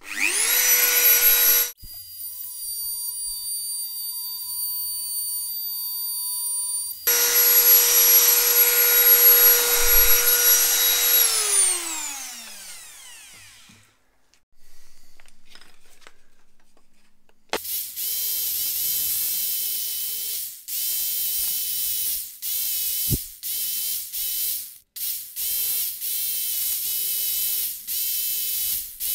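Electric power tools cutting a walnut block. A handheld power tool's motor spins up, runs at a steady pitch and then winds down slowly. Later a scroll saw runs in short stretches, stopping and starting many times.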